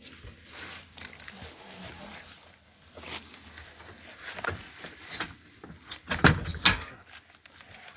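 Wire door and plastic shell of a pet carrier being rattled and knocked as it is worked open, a few scattered clatters with the loudest cluster about six seconds in.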